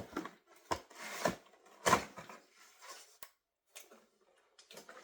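Hands handling doll packaging and accessories: irregular rustling and rubbing with a few light knocks, busiest in the first two seconds and sparser after about three seconds.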